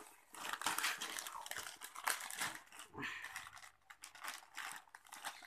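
Crinkling of an empty foil snack packet handled by a toddler, in irregular rustling bursts with short pauses between them.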